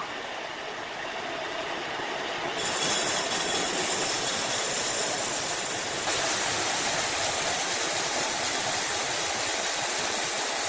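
Steady noise of sawmill machinery, a dense even hiss that gets louder and brighter about two and a half seconds in.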